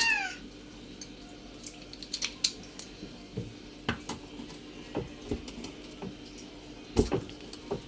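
Scattered clicks and light knocks of washing-machine parts being handled and taken apart for cleaning, with a louder knock about seven seconds in.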